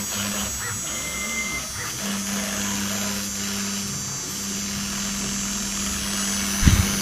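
A CNC router spindle is running with a steady high whine and hum as its bit engraves lettering into a laminated board. There is one brief low thump near the end.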